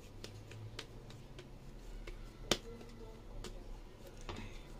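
Hands working a ball of sticky pumpkin and glutinous-rice dough over a bowl: scattered light clicks and taps, with one sharper click about two and a half seconds in.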